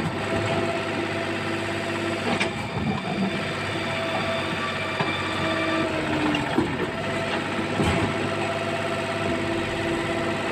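Engine of an old Kobelco mini excavator running steadily under varying load, with a few short knocks.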